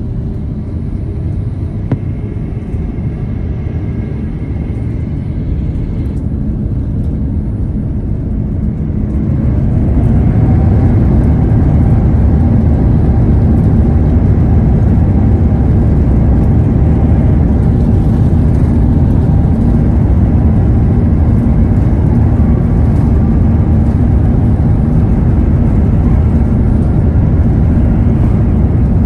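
Airliner jet engines heard from inside the cabin, spooling up to takeoff power about ten seconds in. A steady loud rumble with a whining tone follows as the takeoff roll begins.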